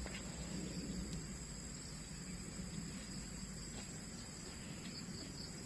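Steady chorus of crickets and other insects, a high thin trilling that holds on without a break, over a low rumble.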